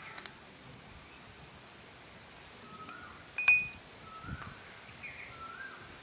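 A steel spoon clinks against a glass tumbler while powdered sugar is tipped in: a few light taps at the start, then one sharp clink with a brief glassy ring about three and a half seconds in. Short bird chirps sound in the background.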